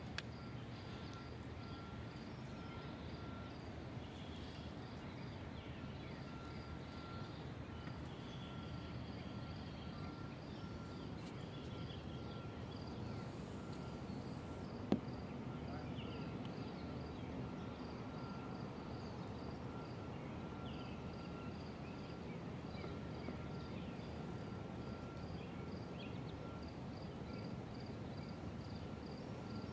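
Outdoor background of steady low hiss with an insect chirping in an even, high-pitched rhythm, about three chirps a second. A single sharp click about fifteen seconds in.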